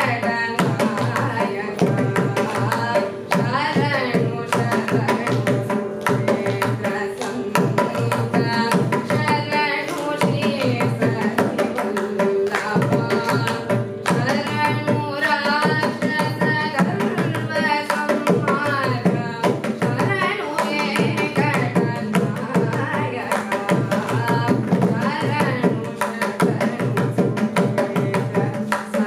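A girl's voice singing Carnatic vocal music in raga Subhapantuvarali, the notes sliding and wavering in ornamented phrases, with a mridangam playing a continuous rhythmic accompaniment beneath.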